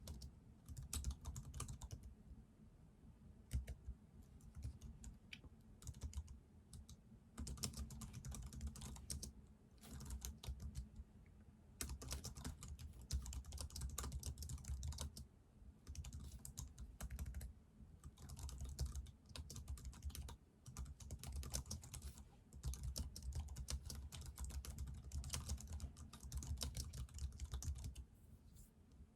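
Computer keyboard typing: rapid runs of keystrokes lasting a few seconds each, broken by short pauses.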